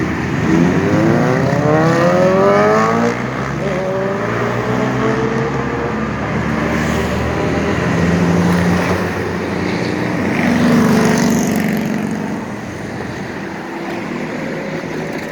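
City street traffic: a vehicle's engine rising in pitch as it accelerates over the first few seconds, then more vehicles passing, with the traffic easing near the end.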